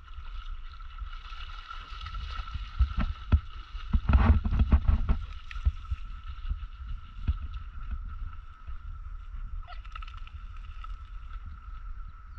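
A swimming setter dog stirring and splashing lake water, under a low wind rumble on the action-camera microphone and a faint steady high tone. About four seconds in comes a louder burst of splashing and rustling.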